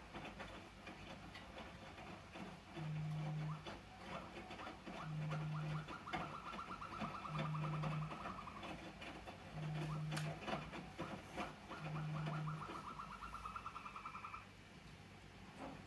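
A low buzz sounding in short bursts of under a second, five times, about every two seconds. Over parts of it runs a higher, rapidly pulsing chatter.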